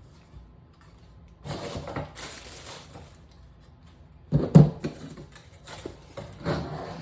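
Packaging rustling and crinkling as it is handled, with a sharp knock about four and a half seconds in.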